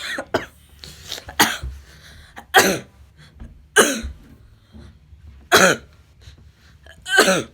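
A child coughing repeatedly: a series of single coughs, five of them loud, each a second or more apart.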